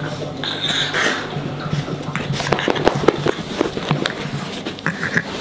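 French bulldog puppy at play, with scattered knocks, scuffles and a couple of short breathy noises about a second in and near the end.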